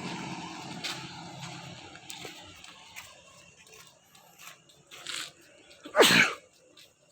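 A motor vehicle's engine dying away, followed by scattered faint clicks and one short, loud burst about six seconds in.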